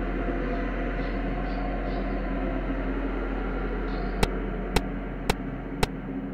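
Steady electrical hum with hiss. From about four seconds in, sharp clicks come evenly, about twice a second.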